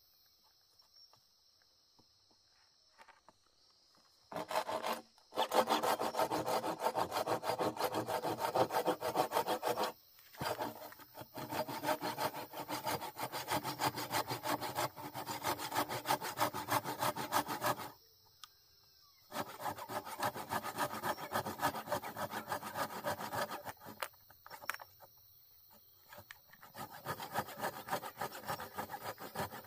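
Handsaw cutting through a wooden plank in back-and-forth strokes. The sawing starts about four seconds in, stops briefly twice, and turns lighter and more broken near the end.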